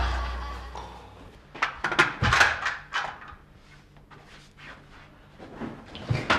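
A run of short knocks and clicks starting about a second and a half in, then a few more near the end.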